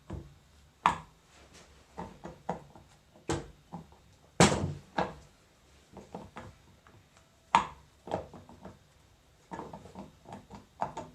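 Irregular knocks, clicks and clunks of hand tools and metal parts while an R-75 hydraulic control valve is being taken apart, with three louder knocks about one, four and a half and seven and a half seconds in.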